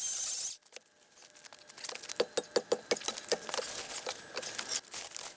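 A brief rushing hiss cuts off about half a second in. From about two seconds in, dry twigs and leaves crackle and snap in quick irregular cracks, about three or four a second.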